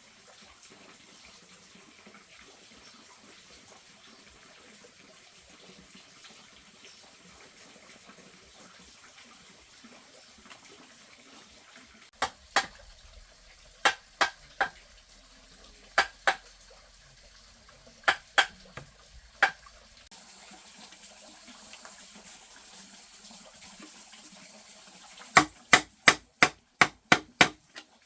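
Sharp knocks, mostly in pairs a second or two apart, and then a quick run of about eight, roughly three a second, near the end, over a faint steady hiss.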